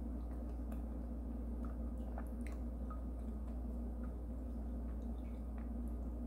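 A spoon dipping into thick, creamy corn soup in a glass mug: small wet squishes and faint scattered clicks, over a steady low hum.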